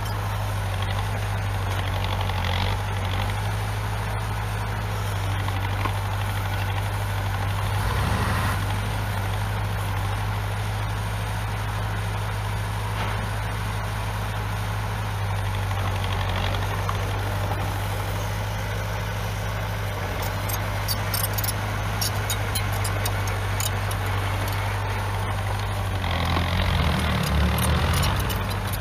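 Heavy construction-machine diesel engine running steadily at a low hum. A scatter of sharp clicks comes in past the two-thirds mark, and the engine grows louder and rougher near the end, as if it were taking load.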